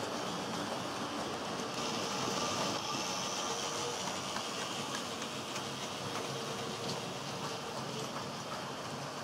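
HO scale model train running along the track: a steady rolling rattle of small metal wheels on the rails with faint clicks, and a faint motor hum.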